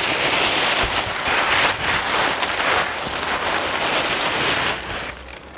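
Plastic bags rustling and crinkling close up as they are handled and pulled about, stopping near the end.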